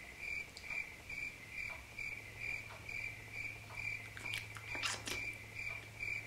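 Crickets chirping sound effect: an even chirp about four times a second over a low hum, cutting off suddenly at the end. A few faint clicks are heard about four to five seconds in.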